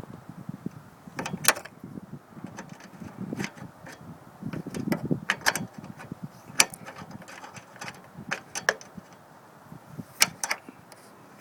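Scattered sharp clicks and clacks of hand tools and parts being handled, with duller rubbing and knocking noise between them.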